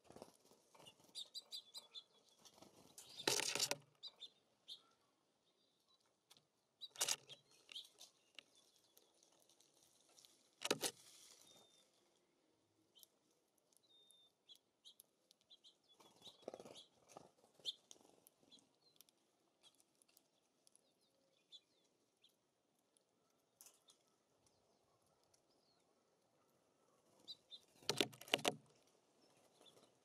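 Small songbirds at a feeder chirping faintly, with several brief louder fluttering flurries, five in all, the loudest about three and a half seconds in and near the end. The flurries are typical of birds' wingbeats as they land on and leave the feeders.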